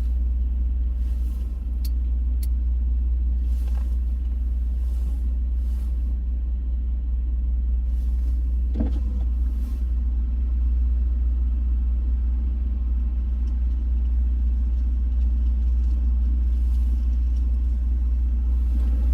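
A motor vehicle's engine running steadily: a deep, even rumble with no change in pitch.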